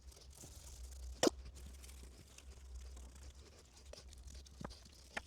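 Faint steady low hum with scattered small clicks and one sharper click about a second in.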